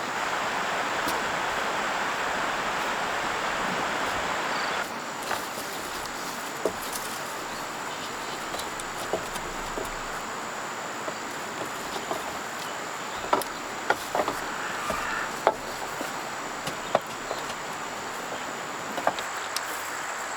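Insects chirring in a steady, high, even tone over a soft hiss, with scattered light knocks and clicks, most of them in the second half.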